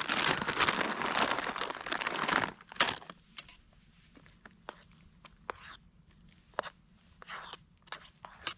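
Plastic packet crinkling and tearing for about two and a half seconds, then a scattering of light clicks and taps.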